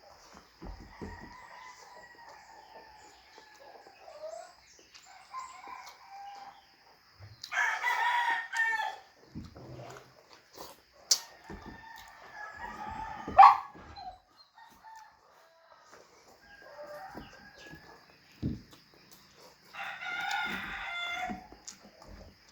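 Roosters crowing twice, about twelve seconds apart, with softer chicken calls in between and a few sharp clicks.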